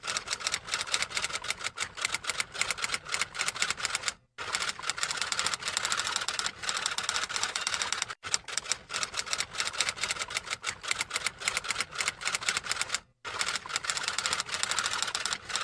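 Typewriter-style clicking sound effect: fast, dense keystroke clicks in runs of about four seconds, broken by short silences three times.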